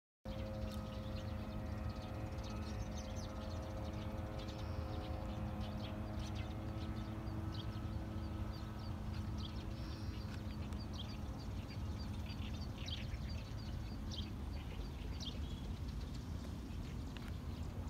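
Outdoor waterside ambience: small birds chirping repeatedly, with a rapid series of high ticking calls around the middle, over a steady low rumble and a faint steady hum that fades out about halfway through.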